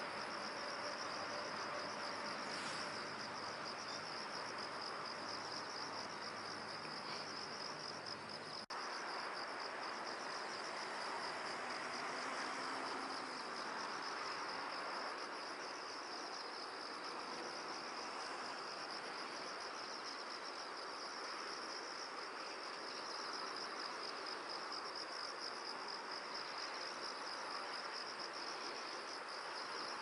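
Steady chorus of insects, a shrill, finely pulsing high trill over a soft hiss, with a brief break about nine seconds in.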